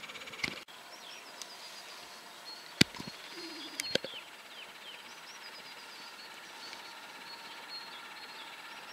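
Small birds chirping in short, repeated downward-sliding calls over a steady faint background hiss. Two sharp clicks stand out, the first and loudest about three seconds in and another about a second later.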